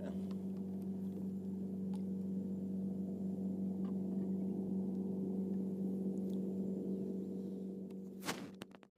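An engine running steadily at one constant speed, a low even hum that does not rise or fall; it fades and breaks off shortly before the end.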